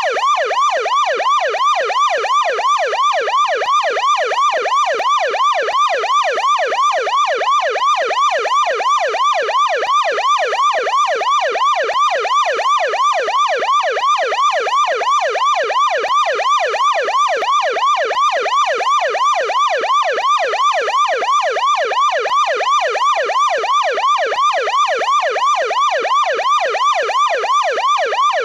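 American police car siren in yelp mode, deep-toned, sweeping rapidly up and down several times a second in a steady, unbroken cycle.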